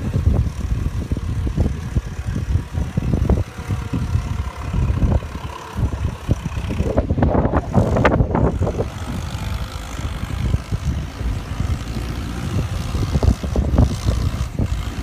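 Vehicle rumble, steady and low, broken by frequent knocks and rattles, and louder for a moment around the middle.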